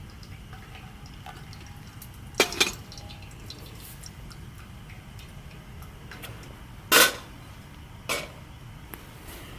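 Sharp clinks and knocks of a cup and utensils being handled while making coffee, about five in all, the loudest about seven seconds in, over a steady low background hiss.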